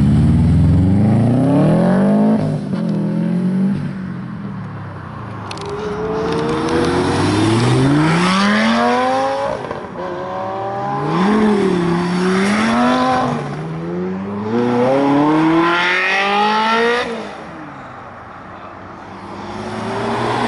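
Sports car engine accelerating hard away, its pitch climbing and then dropping at each upshift, several times over. It quietens for a few seconds near the end.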